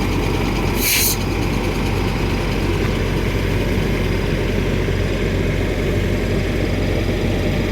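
Caterpillar wheeled excavator's diesel engine running steadily while working its hydraulics, with a short hiss about a second in.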